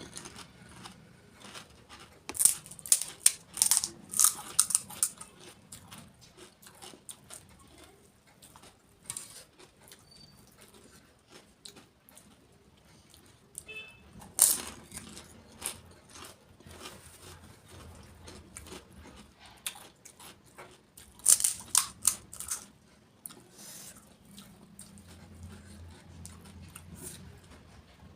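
Crisp golgappa (pani puri) shells crunching close to the microphone as they are bitten and chewed. The loud crunches come in three bursts, a few seconds in, about halfway, and about three quarters of the way through, with fainter chewing between.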